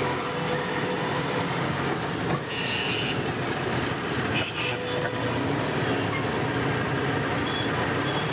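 A vehicle running steadily, a dense rumbling noise with an engine hum underneath, with short high-pitched tones about two and a half and four and a half seconds in.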